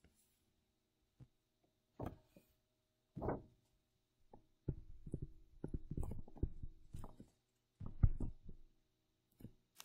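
Stylus writing on a pen tablet, picked up by the microphone as a run of dull knocks and scrapes, densest for a couple of seconds in the middle while a short phrase is written.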